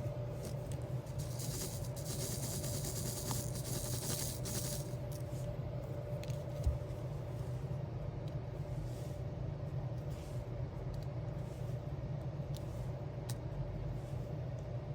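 Soft rustling and crinkling of crafting materials being handled, strongest in the first five seconds, over a steady low background hum, with a single low thump about seven seconds in and a few light clicks near the end.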